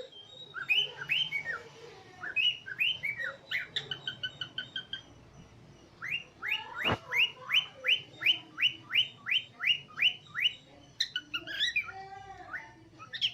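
Cockatiels chirping: scattered short whistled chirps, then a quick even run of about a dozen repeated rising chirps, roughly three a second, then a few varied whistled notes near the end. A single sharp click sounds about seven seconds in.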